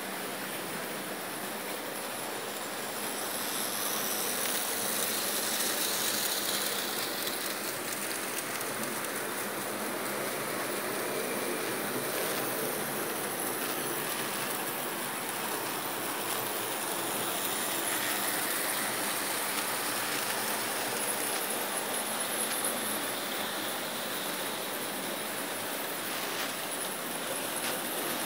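Märklin H0 model steam locomotives and their wagons running on metal track: a steady rolling clatter of small wheels and running gear, swelling a little about four seconds in.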